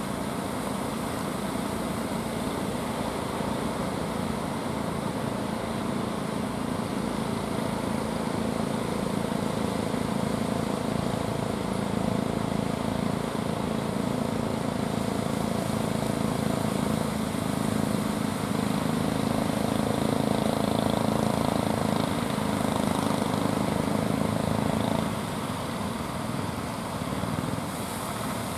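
Engines of wooden fishing boats running steadily as they motor through the surf, with a dense low drone. The drone swells in the second half, then drops back suddenly a few seconds before the end.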